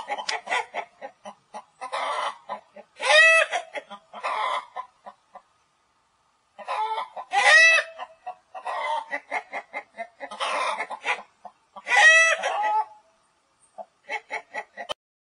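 Chickens clucking in quick runs, with three louder, drawn-out calls about four to five seconds apart.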